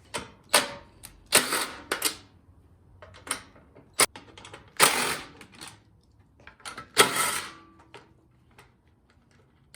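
Hand tools and loose metal parts clicking and clattering in a handful of short bursts, the sound of bolts and covers being taken off a snowblower to reach the carburetor. The loudest rattle comes about seven seconds in.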